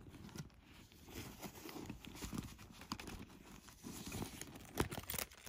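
A hand rummaging inside a handbag: soft rustling with scattered light knocks and clicks as the items inside shift, and a few sharper clicks near the end.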